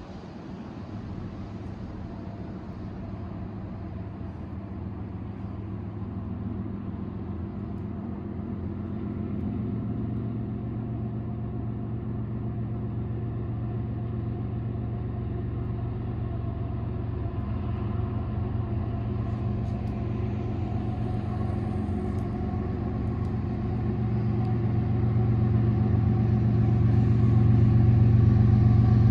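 Diesel locomotive hauling an empty oil freight train approaching, its engine a steady low drone that grows louder, most of all near the end.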